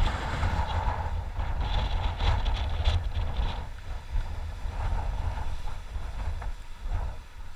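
Wind buffeting a head-mounted action camera's microphone as a steady low rumble. About two to three seconds in, a few short scrapes and knocks come from gloved hands working the climbing rope against rock.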